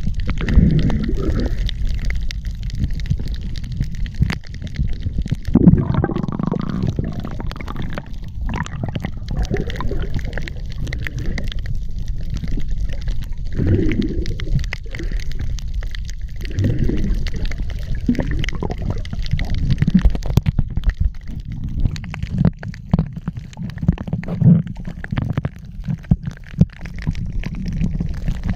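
Underwater sound picked up by a submerged camera: a muffled low rumble and gurgling water that swell every few seconds, with many small clicks and crackles throughout.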